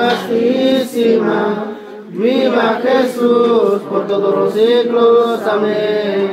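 Voices singing a slow chanted hymn before a home altar, in long held notes with a brief pause about two seconds in.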